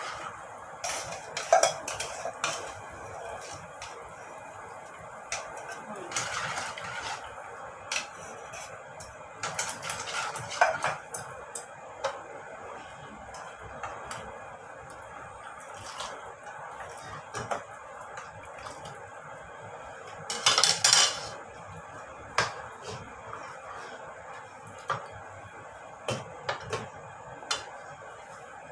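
Utensil stirring pumpkin soup in a steel pot, clinking and knocking against the pot at irregular intervals over a steady faint hiss. There is a louder clatter of metal about two-thirds of the way through.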